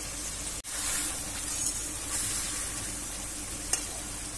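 Hilsa in yogurt-mustard gravy sizzling in an iron kadai: a steady hiss that swells a few times, cut by a brief dropout under a second in. A single light click of the spatula against the pan comes near the end.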